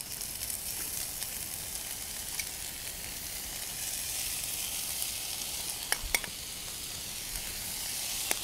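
Spinach and onions sizzling as they sauté in a hot nonstick wok while being stirred with a metal spoon, with a steady hiss. There are a couple of light clicks of the spoon against the pan about six seconds in.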